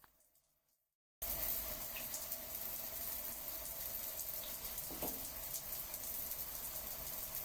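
A faint sound fades into a moment of silence, then steady running water starts abruptly about a second in and flows on evenly.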